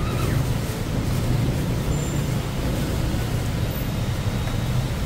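Steady road traffic: cars and buses crawling along a rain-wet multi-lane city road, with a continuous low engine hum under the tyre noise.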